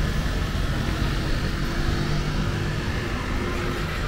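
Street traffic with a vehicle engine running steadily at low, even revs.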